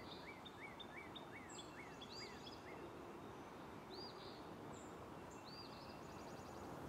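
Faint birdsong: small birds chirping over and over with short high notes, some arching up and down and some dropping, and a brief rapid trill near the end, over a low steady background hiss.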